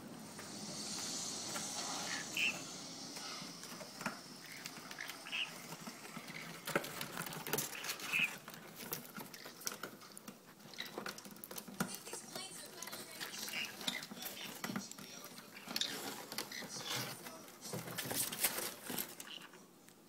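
Green-cheeked conures scrabbling about inside a cardboard box: a running patter of small scratches and taps on the cardboard, with a few short, high chirps.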